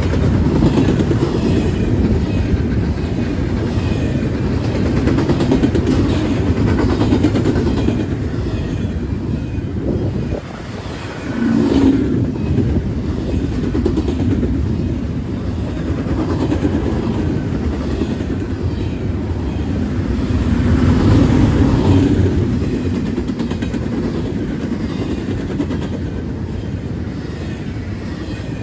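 BNSF double-stack intermodal freight cars rolling past: a steady rumble of steel wheels on rail with repeated clicks. It dips briefly about ten seconds in and swells again just after.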